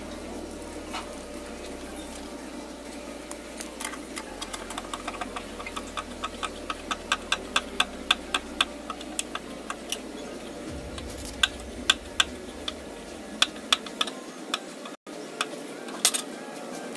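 Scissor jack being cranked with its bent handle rod, giving a run of regular metallic clicks, a few a second, starting about three seconds in and stopping near the end.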